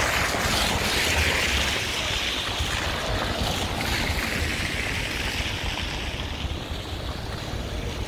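City traffic passing on a snowy street: tyre hiss on the wet snow swells and fades as cars go by, under an uneven low rumble of wind on the microphone.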